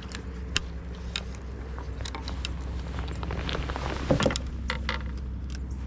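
Scattered light clicks and knocks of fishing tackle being handled on an aluminum boat, over a steady low hum, with a louder thump about four seconds in.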